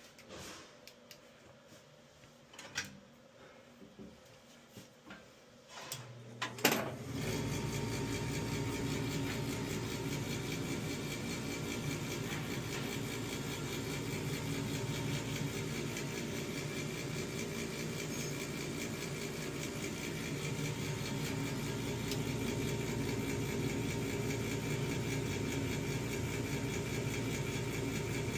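Gas furnace starting its cycle: a few faint clicks, then a sharp click about six and a half seconds in as a motor starts and runs with a steady hum. The motor is most likely the draft inducer, since the blower still fails to come on, the furnace's capacitor having been faulty.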